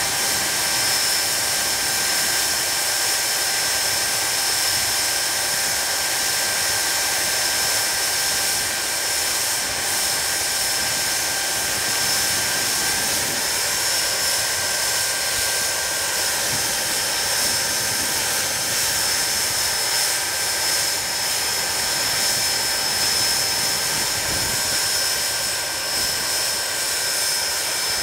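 Hawker Siddeley Nimrod's Rolls-Royce Spey turbofan engines running at a steady speed: a loud even rush with a constant high-pitched whine.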